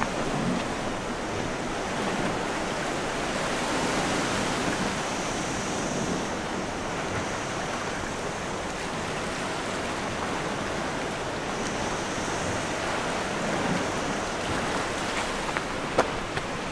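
Sea waves washing steadily onto the shore, with a couple of sharp clicks about a second before the end.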